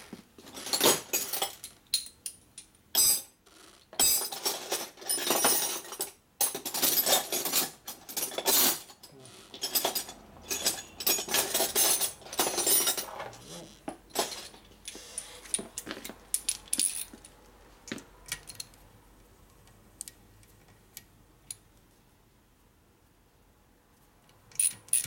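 Small metal hand tools and parts clattering and jingling as they are sorted through, dense for the first half, then a few scattered clicks.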